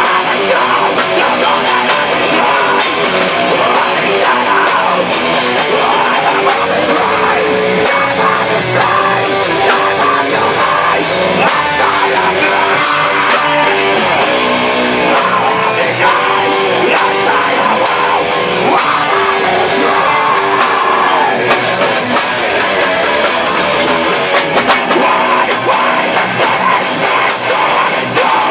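Heavy metal band playing live in rehearsal: guitars and a drum kit at full, steady loudness throughout.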